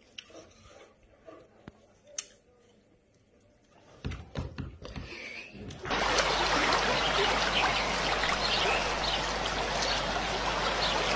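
A few faint clicks, then a steady rush of splashing, running water as a dog wades through a shallow stream, starting about six seconds in.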